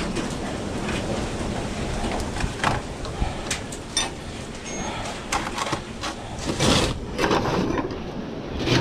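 Tools and odds and ends being shoved around and set down on a cluttered workbench: a scattering of knocks and clatters, the loudest a little past the middle.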